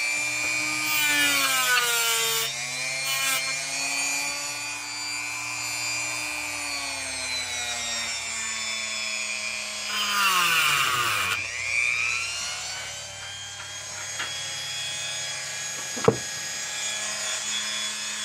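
Small power tool's electric motor running continuously, its pitch slowly rising and falling and dropping sharply about ten seconds in, with one sharp click near the end.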